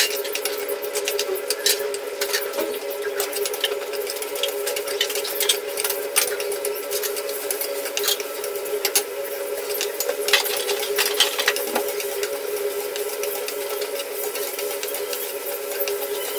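Slotted metal spatula scraping and clicking irregularly against a steel wok as chicken and potato pieces are stirred in hot oil, over a frying hiss and a steady hum.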